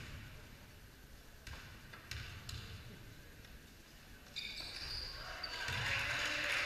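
Basketball bouncing on a hardwood gym floor, a few separate dribbles echoing in the hall. About two-thirds of the way through, voices and general crowd noise rise and grow louder.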